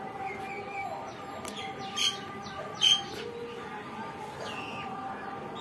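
Birds chirping, with two louder short, sharp chirps about two and three seconds in.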